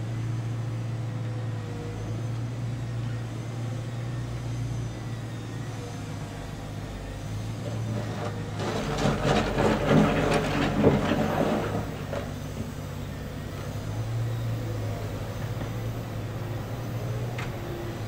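Komatsu wheeled excavator's diesel engine running steadily, with a few seconds of loud clattering and scraping about halfway through as the machine digs.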